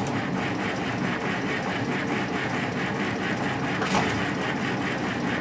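Electric starter cranking the diesel engine of a 1961 J.I. Case 730 tractor, a steady rapid rhythm that starts suddenly and keeps on without the engine catching: a hard start on a weak battery boosted with jumper cables.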